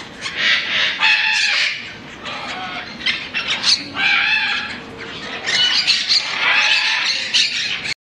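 Macaws calling loudly, in three bouts of long raucous calls.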